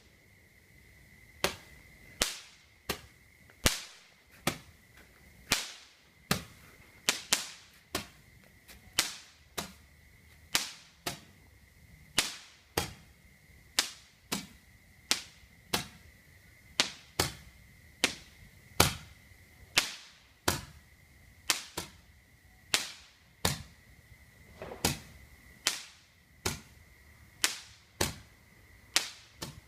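Fireworks going off: a long, irregular series of sharp bangs, roughly one or two a second, each with a short echoing tail. A faint steady high tone runs underneath.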